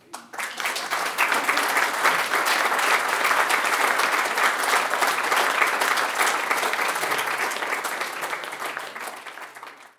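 Audience applauding, many hands clapping at once: it starts suddenly, holds steady, then dies away near the end.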